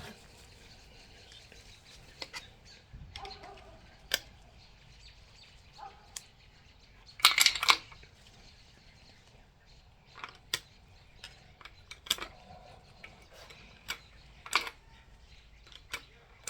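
Scattered light metallic clicks and clinks of roller lifters and small engine parts being handled and set into an engine block. A louder cluster of sharp clicks comes about seven seconds in.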